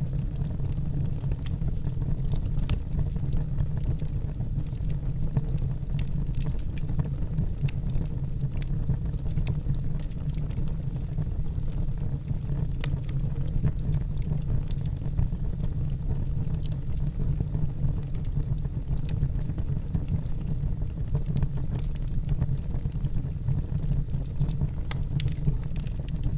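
Wood campfire burning: a steady low rumble of flames with scattered sharp crackles and pops, one louder pop near the end.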